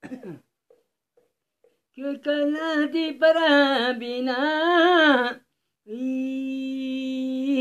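A man singing unaccompanied: a wavering, ornamented melodic phrase, then after a short breath one long held note.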